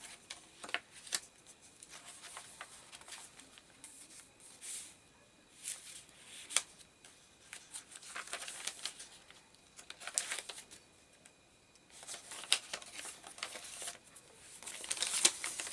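Paper rustling and crinkling with soft clicks and taps, in irregular bursts, as the paper pages, pockets and inserts of a handmade junk journal are opened, unfolded and turned.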